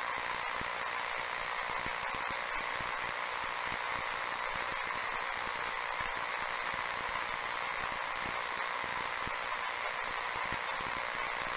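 A steady crackling hiss, thin and without any low end, with fine clicks scattered all through it.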